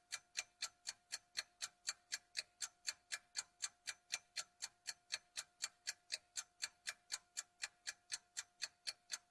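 Even, clock-like ticking, a little under four ticks a second, with a faint steady tone underneath.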